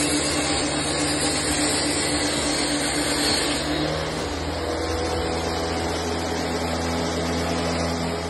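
Benchtop table saw running steadily as a pine board is fed through it.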